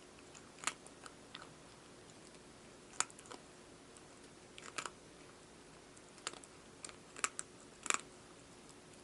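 A cat eating dry food, with scattered crisp crunches at irregular intervals, several clustered near the end.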